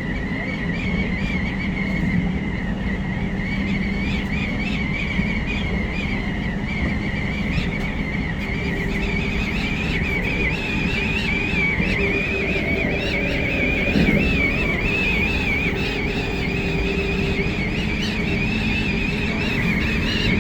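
Cabin noise of the Hakodate Liner electric train running along the line: a steady rumble of wheels on track with a wavering high whistle over it, stronger in the second half. A steady hum joins for several seconds in the middle.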